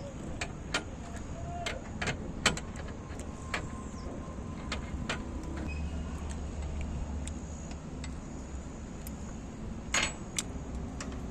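A low, steady engine rumble with scattered sharp clicks and clinks throughout, the kind made by parts or tools being handled.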